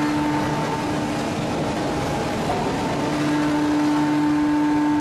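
Heavy forging-plant machinery running: a steady loud roar of noise with a constant hum, as from a hydraulic open-die forging press and manipulator working a hot ingot.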